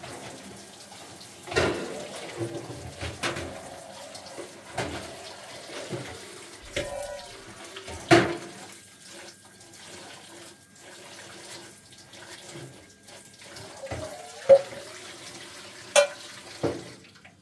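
Dishes being washed by hand in a stainless steel sink: tap water running, with several sharp clanks of metal bowls and dishes knocking against each other and the sink, the loudest about eight seconds in and near the end.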